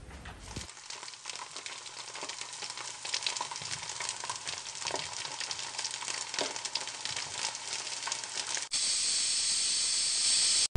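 Crackling, sizzling sound effect of an animated logo sting, growing louder over several seconds and switching near the end to a steady high hiss.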